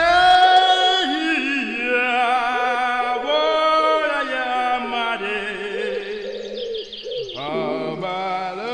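Vocal music: layered voices singing long held notes, one line steady while another wavers in ornamented turns, with a new phrase entering about seven seconds in.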